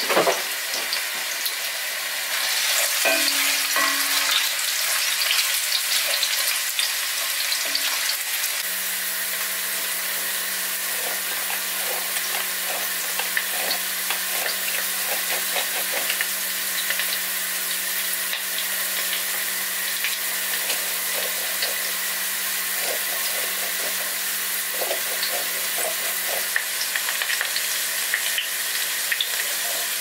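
Food sizzling and crackling as it fries in a pan. A steady low hum comes in about nine seconds in and continues under it.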